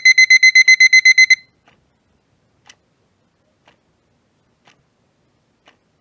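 Electric kitchen timer alarm beeping rapidly, about eight high-pitched beeps a second, cutting off suddenly about a second in. Faint ticks follow, about once a second.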